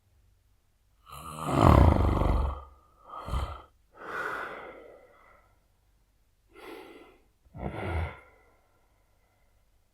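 A man snoring heavily: a long, loud snore about a second in, a short burst just after three seconds, a breathy exhale, then two shorter snores near the end with pauses between breaths.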